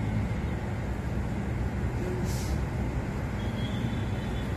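Steady low rumbling background noise, with a brief hiss about two seconds in.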